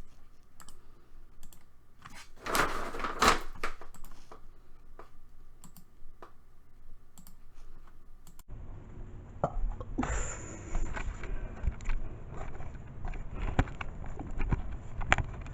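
Scattered light clicks and taps, with a louder rustling noise about three seconds in. About halfway through, the background changes abruptly to a steady low rumble, with more knocks and clicks over it.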